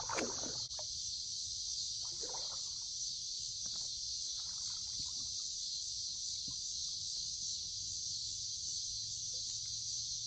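Steady high-pitched chorus of insects, with water sloshing and splashing as a person wades through a pond, loudest in the first second and again at about two seconds in.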